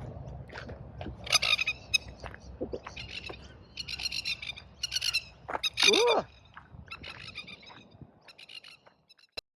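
Birds giving harsh, chattering calls in short bursts about once a second, fading near the end. A single click comes just before the sound cuts off.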